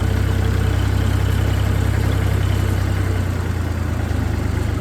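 Farm tractor engine running steadily with a low hum while driving, the hum shifting a little about three seconds in.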